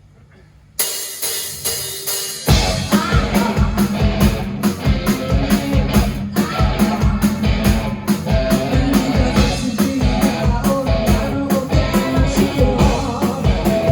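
Rock band playing live, starting a song: the music comes in about a second in, and drums and bass join with a steady driving beat about a second and a half later.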